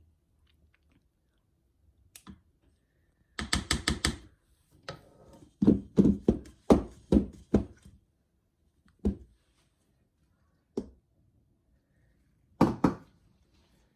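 Kitchen utensils knocking and tapping on cookware: a quick run of taps a few seconds in, then a string of about seven heavier knocks at roughly three a second, then three single knocks spaced out.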